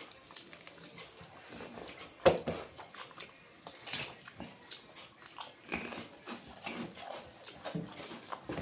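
Close-up eating sounds: irregular crunchy bites and chewing, with a sharp crunch about two seconds in.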